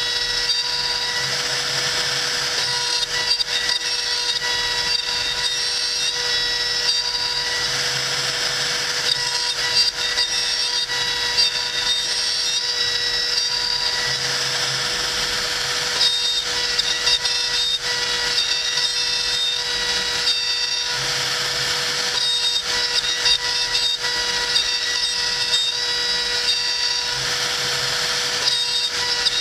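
CNC router spindle whining steadily as its bit cuts a pocket into a block of hardwood; the cutting noise swells and eases every six seconds or so.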